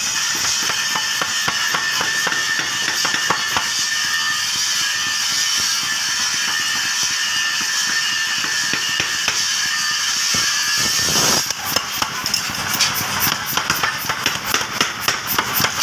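Power hammer striking a red-hot steel trowel blank on an anvil in a rapid run of sharp blows, starting about eleven seconds in, over background music.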